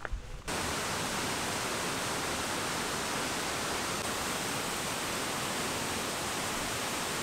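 Mostnica waterfall's steady, even rush of falling water, starting suddenly about half a second in.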